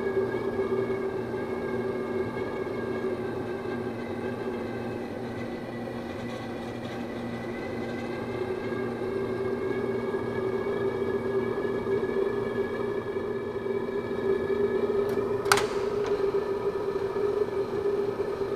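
A steady droning hum made of several fixed tones that hold their pitch throughout, with one sharp click about fifteen seconds in.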